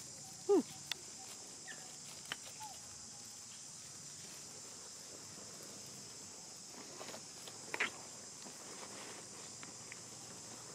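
Steady high-pitched insect drone throughout. About half a second in, a short call glides down in pitch, and near the end there is a brief crackle.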